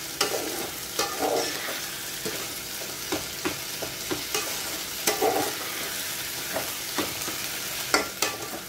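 Rice frying in a metal pot with a steady sizzle, stirred with a metal spatula that scrapes and clicks against the pot many times.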